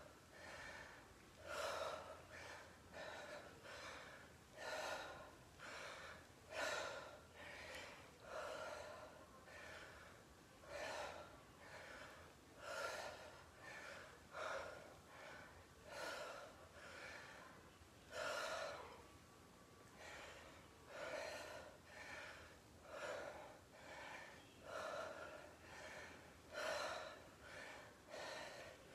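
A woman breathing hard from exertion during a dumbbell squat-and-twist exercise: short, sharp breaths through the mouth, about one a second, with louder ones roughly every two seconds.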